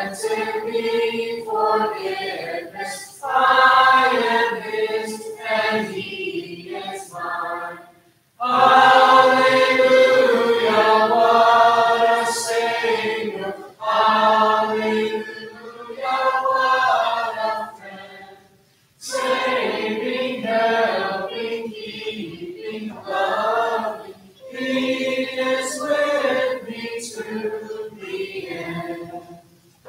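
A congregation singing a hymn together without instruments, in sung lines separated by short pauses for breath.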